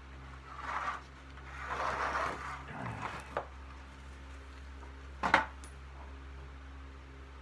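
Two dustpans scraping debris off the floor in two short passes, then a single sharp knock about five seconds in.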